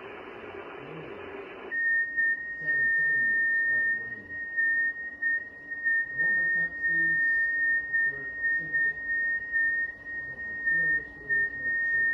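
6-metre ham radio receiver hiss, cut off at about 3 kHz and carrying faint FT8 signals, stops just under two seconds in as the rig switches to transmit. A loud, near-steady high tone then runs on: the FT8 transmit audio of the station calling CQ.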